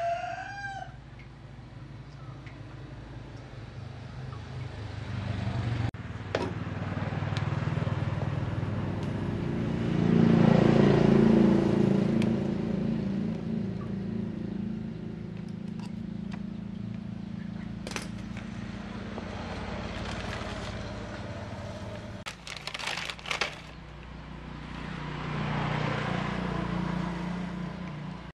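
A motorcycle engine running, its sound swelling to a rev about ten seconds in and easing back, with another rise near the end and a few sharp clicks a little past two-thirds of the way. A rooster crows at the very start.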